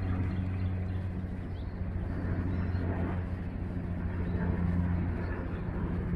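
Steady low hum of a motor over a continuous rushing background noise.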